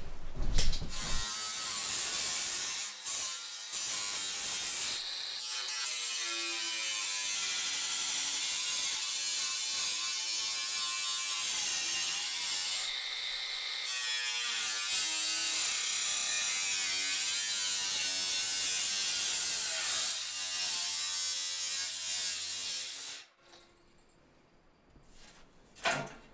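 Angle grinder cutting through black steel stovepipe, a loud, harsh grinding whine whose pitch wavers as the disc bites, with a few brief dips. It stops a few seconds before the end, followed by a short knock.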